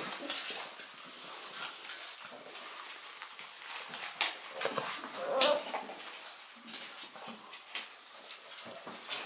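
Six-week-old Shar-Pei puppies whimpering softly as they play, with scattered sharp clicks and scuffs of paws and bodies.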